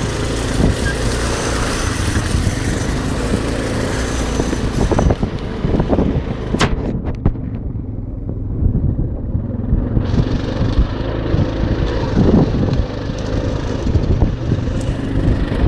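ATV engine running steadily as the quad drives through mud, with a few sharp knocks about six to seven seconds in.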